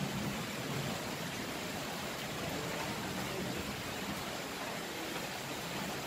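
Steady hiss of light drizzling rain on a corrugated metal roof.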